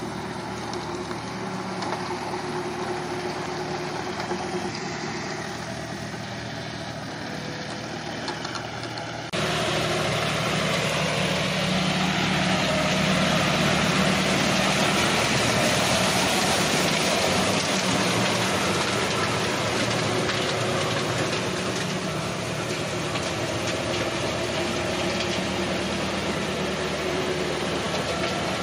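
John Deere 5050 D three-cylinder diesel tractor engine running steadily under load while it drives a rotavator through wet paddy mud. It gets suddenly louder and noisier about nine seconds in, heard from close beside the tractor.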